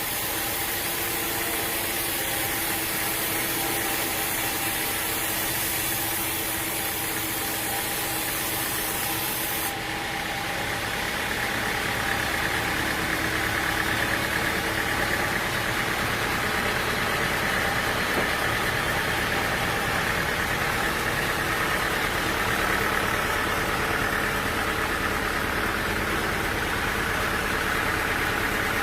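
Machinery running steadily, an engine-like drone with several steady tones. A high hiss cuts off suddenly about ten seconds in, and the running sound then grows a little louder.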